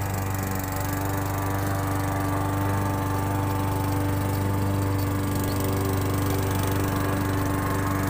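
Gasoline walk-behind push lawn mower engine running steadily under mowing load.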